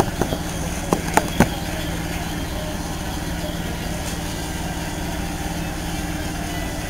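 Asphalt paver's engine running steadily, with a cluster of sharp knocks in the first second and a half.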